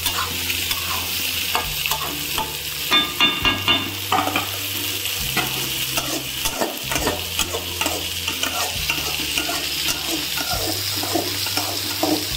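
Metal spatula stirring and scraping greens with chana dal in an aluminium kadai as they sizzle, with a quick run of metal-on-metal clinks about three seconds in.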